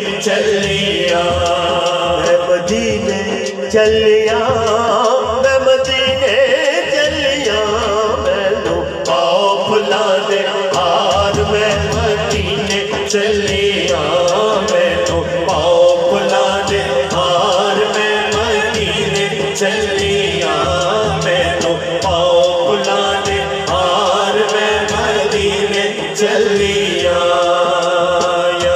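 A man's voice singing a naat through a loudspeaker system, melismatic and chant-like, with a regular drum beat underneath.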